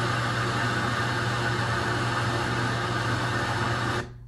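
Steady rushing noise with a low hum underneath; it cuts off suddenly about four seconds in, leaving only a faint hum.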